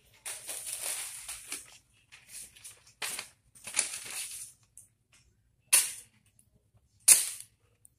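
A sheet of newspaper rustling and being slashed through by a sharp kitchen knife in a sharpness test: several papery swishes, the two loudest and sharpest coming near the end, a little over a second apart.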